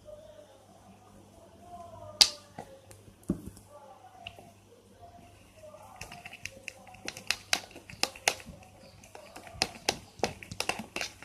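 Sharp clicks and taps of a utensil against a plastic container while the glue and water slime mixture is worked, a few at first and then a dense run in the second half, over faint background voices.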